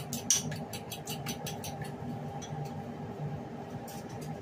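Plastic packaging crinkling and rustling in irregular crackles, busiest in the first two seconds and thinning out after, over a steady low hum.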